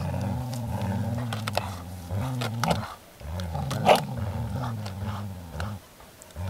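Groenendael Belgian Shepherd dogs growling low and continuously while tugging over a toy: tug-of-war play growls with an edge of resource guarding. The growls break off briefly about three seconds in and again near the end, with a few sharp clicks, the loudest just before four seconds in.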